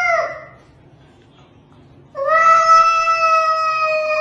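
A cat yowling in long, drawn-out meows. One call trails off in the first moment, and a second, longer one begins about two seconds in and is held.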